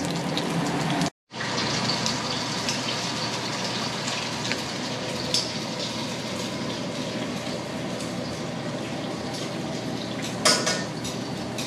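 Steady sizzle of food frying in oil in a pan, with a few light clinks of utensils and a brief clatter near the end.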